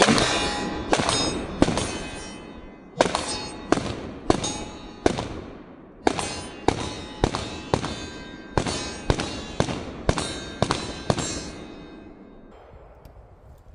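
Pistol fired in rapid strings of shots, each shot sharp with a ringing echo. There are a few quick shots, a short pause, four more, another pause, then about ten shots at roughly two a second before the echo fades out.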